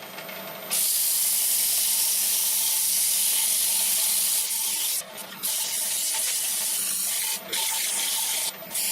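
Sandpaper held against an oak saucer spinning on a wood lathe: a loud, steady hiss that starts about a second in and breaks off briefly three times, with the lathe's motor humming faintly underneath.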